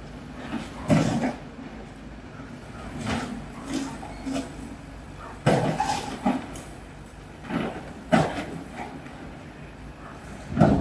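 Tata Hitachi excavator demolishing a concrete building frame: irregular crashes and crunches of concrete and debris being broken and falling, about nine of them, over the low drone of the machine.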